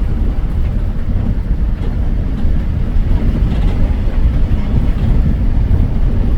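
Bus driving on a dirt road: a loud, steady, low rumble.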